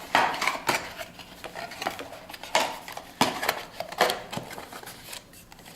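Hard packaging and accessories being handled by hand: a string of irregular clicks, knocks and rustles, the sharpest just after the start and about a second, two and a half, three and four seconds in.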